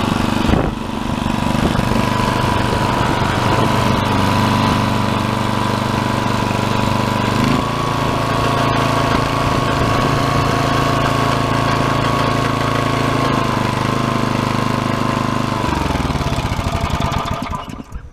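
1999 Yard Machines rotary tiller's 5 hp Briggs & Stratton Classic single-cylinder engine running steadily, speeding up a little about halfway through. Near the end it is shut off and winds down to a stop.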